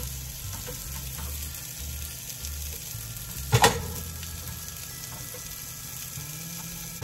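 Food sizzling steadily in a hot frying pan, with one sharp knock about halfway through.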